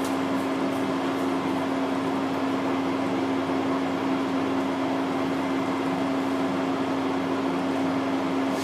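Steady hum and hiss of room tone with one strong constant low tone, and a few faint ticks in the first second or so.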